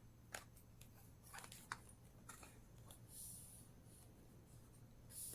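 Near silence with a few faint clicks and a soft rustle as the plastic parts of a spin scrubber, its scrubber head assembly and extension handle, are handled and fitted together.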